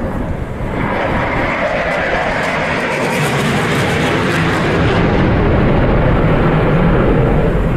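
Eurofighter Typhoon's twin EJ200 turbofans during a display pass: broad jet noise that grows steadily louder, its deep low rumble strengthening in the second half.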